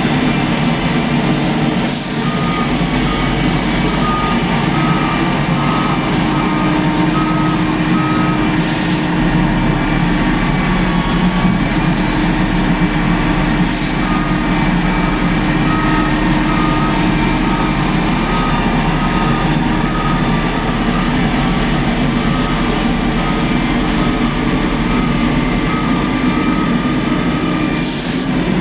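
Heavy truck or machine engine running steadily while its back-up alarm beeps about twice a second, stopping for a couple of seconds near the middle. Four short hisses cut in along the way.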